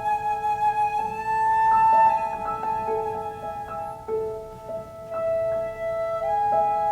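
Flute and piano playing a slow classical chamber passage. Held notes over piano chords, with one note swelling loudest about two seconds in and a softer stretch about four seconds in.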